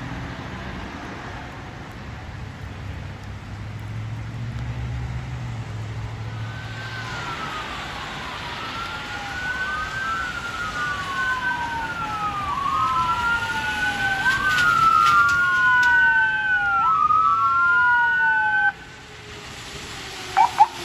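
Emergency vehicle siren wailing, its pitch rising and falling over and over and growing louder as it approaches, then cutting off abruptly a couple of seconds before the end. A low vehicle hum runs underneath in the first few seconds, and a couple of short chirps come near the end.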